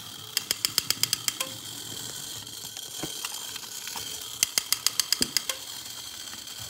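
Clockwork of a vintage Marx "Space Bee" wind-up toy. Two runs of rapid ratchety clicking, near the start and again past the middle, sound over the steady high whir of the wound spring motor running.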